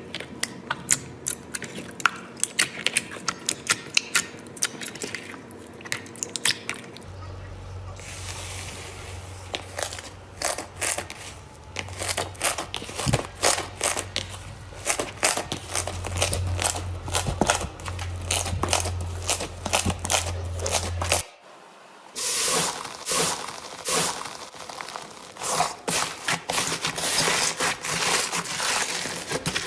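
Slime being squeezed, poked and stretched by hand, giving rapid sticky clicks, pops and crackles. The sound changes abruptly about seven seconds in and again about twenty-one seconds in.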